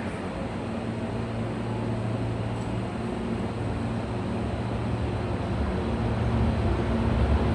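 Hankyu electric train pulling out of the platform: a steady low hum with the noise of the cars, growing louder as it gathers speed and passes close by.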